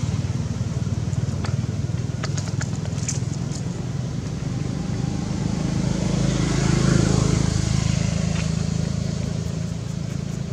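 A motor engine runs with a steady low hum, swelling to its loudest about two-thirds of the way through and then easing off, as if passing by. A few faint clicks come early on.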